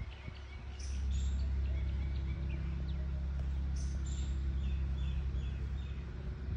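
Small birds chirping, short high calls again and again, over a steady low hum that sets in about a second in and stops near the end.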